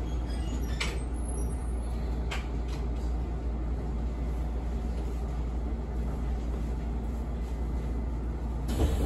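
Steady low hum inside a standing Izuhakone Railway 7000 series electric train car, from its running equipment, with a couple of light clicks about one and two and a half seconds in.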